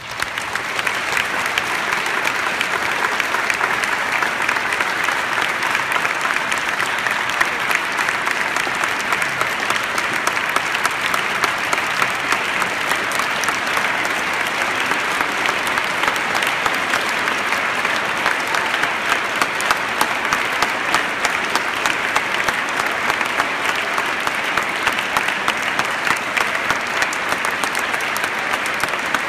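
A large audience applauding, breaking out all at once and then holding steady as a dense, even clapping.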